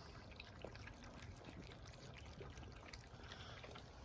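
Faint wet lapping and smacking of young puppies eating soft, milk-soaked kibble, heard as scattered small clicks.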